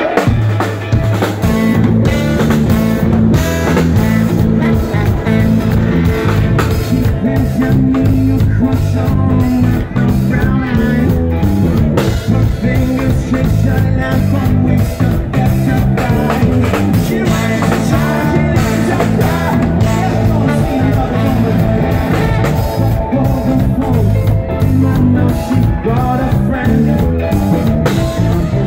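Live rock band playing: electric guitars, bass guitar and drum kit, with a male lead singer singing into a microphone. The bass and drums come in about half a second in, after guitar alone.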